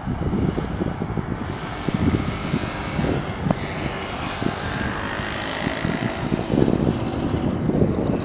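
Aircraft taking off, its engine noise swelling from about two seconds in and fading near the end, with wind buffeting the microphone.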